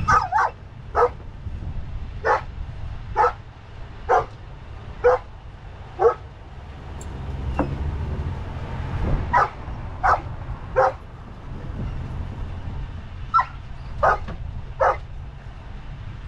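A dog barking in short, sharp barks, about one a second, in three runs with pauses between them. A low steady rumble runs underneath.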